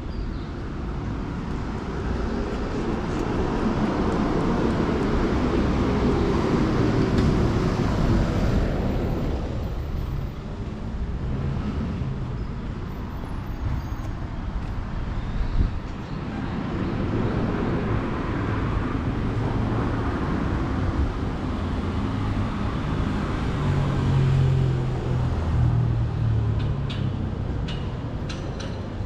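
Road traffic: motor vehicles passing along a street, the noise swelling and fading twice, the second pass carrying a low engine drone.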